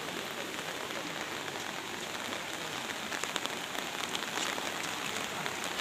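Steady rain falling, a dense patter of many small drops on water and wet ground.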